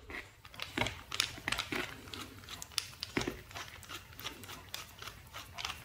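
The metal probe tube of a Geiger counter being unscrewed from its grip by hand: faint, irregular scraping and small clicks from the threads and the hands turning it.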